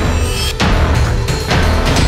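Dramatic background music with a heavy, steady bass and a sharp hit about once a second.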